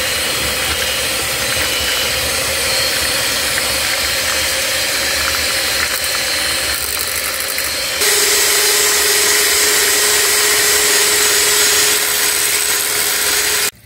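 Electric hand mixer running, its beaters churning boiled potatoes with butter and sour cream in a stainless steel pot into creamed potatoes. Its whine steps lower and gets louder about eight seconds in, and it cuts off just before the end.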